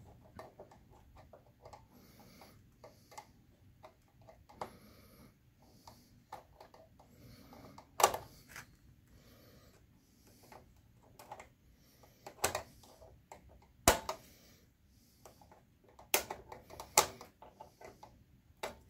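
Screwdriver driving small screws into a projector's plastic rear input panel: light scraping and ticking as the screws turn, with a few sharp clicks.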